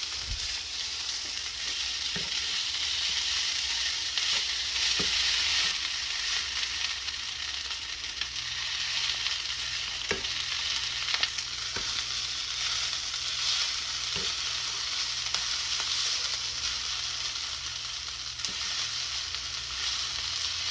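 Food sizzling in a hot frying pan as it is stirred, a steady frying hiss broken by a few sharp taps of the utensil against the pan.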